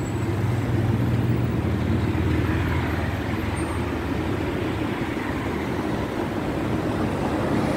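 Steady low engine hum and road noise heard from inside a car creeping along in heavy traffic, with a droning tone that is strongest in the first few seconds.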